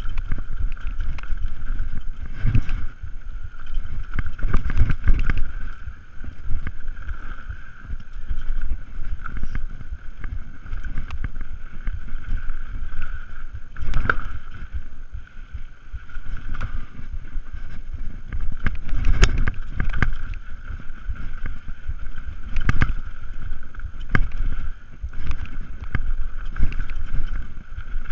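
Mountain bike descending a dirt singletrack: wind rushing on the microphone and tyres running over dirt, with a steady high buzz underneath. Sharp knocks and rattles come as the bike hits bumps, the loudest about 14 and 19 seconds in.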